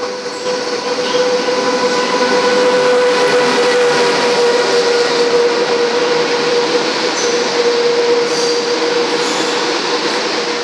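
China Railways SS8 electric locomotive and its 25T passenger coaches passing through a station at speed. A loud rush of wheels on rail swells over the first couple of seconds and then holds, with a steady tone running through it that fades near the end.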